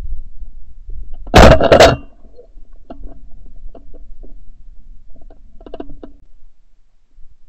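A single shotgun shot about a second and a half in, a sharp report with a short tail, recorded from a camera mounted on the gun's barrel; a few faint clicks follow.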